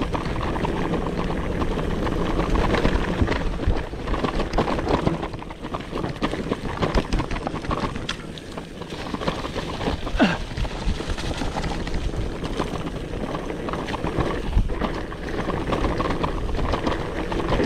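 Mountain bike riding down a dirt downhill trail: tyres rolling over dirt and stones, with the bike rattling and clicking over bumps and wind on the microphone.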